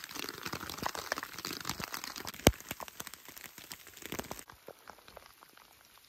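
Thin plastic rain poncho crinkling and rustling in quick, dense crackles, with one sharp knock about two and a half seconds in. The crinkling stops suddenly at about four and a half seconds, and only faint, scattered rustles are left.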